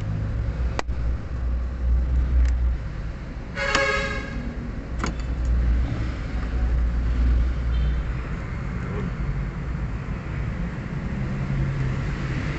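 Steady low rumble of a motor vehicle, with a short car horn toot about four seconds in. A few sharp clicks come from the fuel filter hoses being handled.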